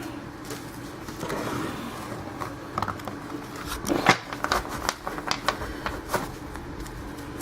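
Trading cards and their packaging being handled: scattered light clicks, taps and rustles as cards are slid and flipped through.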